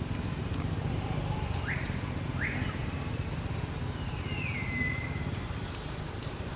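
Scattered high chirps and short rising whistled calls, with one longer falling call just under five seconds in, over a steady low background rumble.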